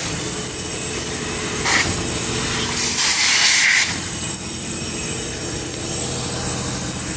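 Car-wash pressure-washer wand spraying high-pressure water against a car's window and mirror: a loud, steady hiss with a steady hum underneath. The spray swells harsher twice, briefly just under two seconds in and for most of a second around three seconds in.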